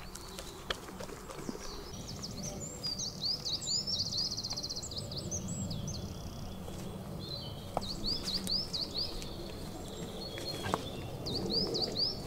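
Small songbirds singing in three phrases of quick, repeated hooked whistled notes, about three seconds in, again near eight seconds and once more near the end, over a low, steady rustle.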